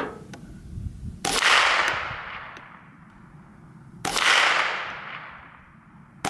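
Two shots from a .22 LR rifle, a Marlin 795 semi-automatic, about three seconds apart, each with a long fading echo; a third shot cracks right at the end.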